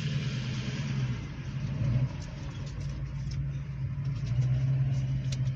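Car engine running with a steady low hum that swells and eases a couple of times, with a few light clicks near the end.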